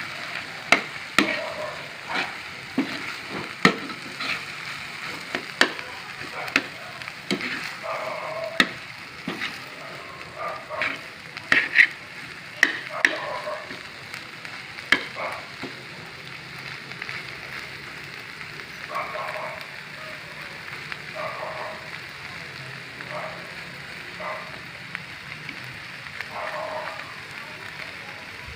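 Corned beef frying in butter in a pan, sizzling steadily while a spatula stirs it, with sharp clicks of the spatula against the pan through the first half and slower scraping strokes later on.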